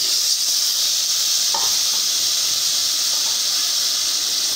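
Raw mutton pieces sizzling in hot oil with fried onion and ginger-garlic masala in a pressure cooker, a steady hiss, while a steel ladle stirs them.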